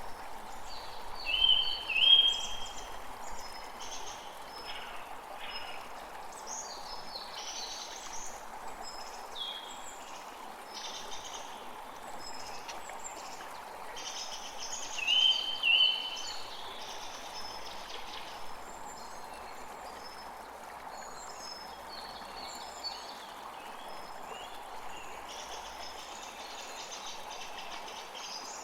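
Creek water flowing in a steady rushing babble, with several birds chirping and calling over it. Short clear whistled notes stand out twice near the start and again about halfway through.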